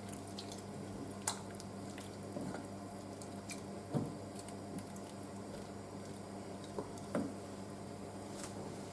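Gnocchi in a creamy leek and bacon sauce warming in a pan: a few soft, brief pops and squelches spaced a second or more apart over a steady low hum.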